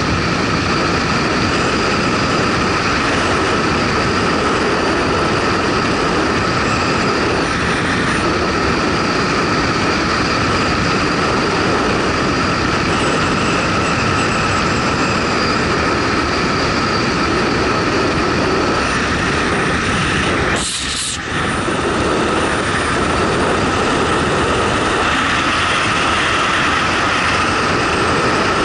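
Motorcycle riding along: steady engine and wind noise. The noise dips briefly about twenty seconds in.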